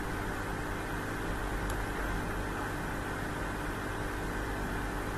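Steady background hiss with a low electrical hum, the room tone of the recording, and one faint tick about two seconds in.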